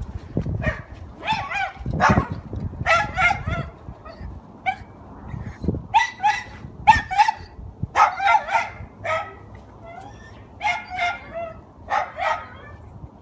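A dog barking repeatedly in short calls, often two or three in quick succession, with brief pauses between the groups.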